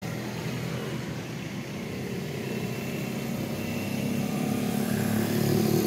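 A motor vehicle engine running steadily, its low hum growing gradually louder toward the end.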